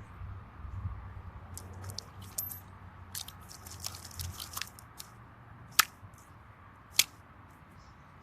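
Ghostbusters Ectoplasm slime, four kinds mixed together, being squeezed and kneaded by hand: a string of small wet squelches and crackling pops, with two sharper, louder pops near six and seven seconds in.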